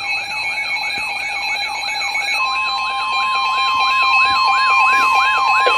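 Emergency alert receivers sounding their alarm tones at once: a siren-like sweep repeating about three times a second over steady electronic tones, with another steady tone joining about two seconds in, the signal of a new warning being issued.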